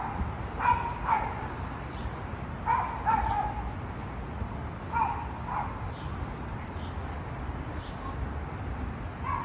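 A dog barking in short pairs of barks every couple of seconds, with a single bark near the end, over a steady low background rumble.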